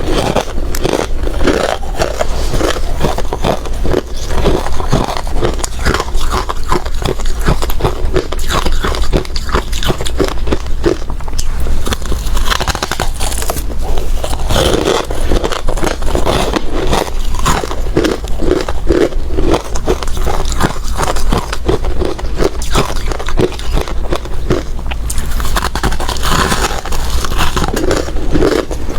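Close-up, continuous crunching of hard ice being bitten and chewed, with many rapid cracks and crackles as the cubes break between the teeth.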